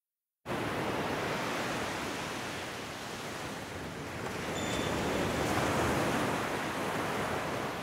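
Small sea waves breaking and washing up on a sandy beach: a steady rushing surf that starts about half a second in and swells a little louder around the middle.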